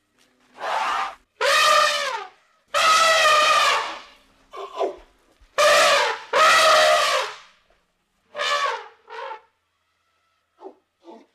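An elephant trumpeting again and again: about eight short, loud, brassy calls with brief pauses between, several dropping in pitch at the end, the last few shorter and weaker.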